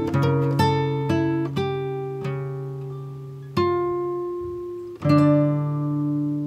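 Background music: plucked-string notes and chords, each ringing out and fading, coming more slowly with a few long held chords toward the end.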